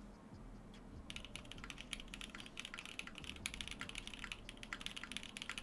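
Custom 60% mechanical keyboard with lubed Everglide Moyu Black linear switches and GMK keycaps, typed on very fast in a sound test: a dense run of rapid keystrokes starting about a second in.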